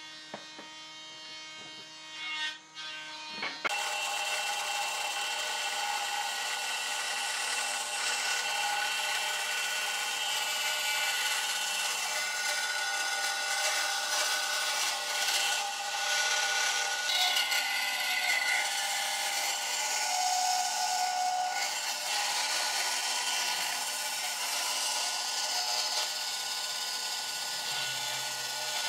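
Band saw cutting a glued-up wooden panel along a curved line: a steady running noise from the blade and the cut, with steady tones from the machine. It starts abruptly about four seconds in, after a quieter stretch.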